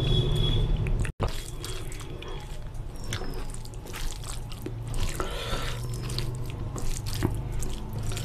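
Fingers squeezing and mixing biryani rice soaked in raita and gravy on a steel plate: wet squelching with many small sticky clicks, over a steady low hum.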